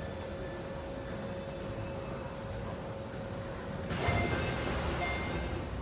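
Running noise inside a Keio 1000-series electric train car, with a steady tone from the Toyo Denki IGBT VVVF inverter and traction motors. The tone fades out about three seconds in. About four seconds in a sudden hiss starts, with a new high whine, and lasts about a second and a half.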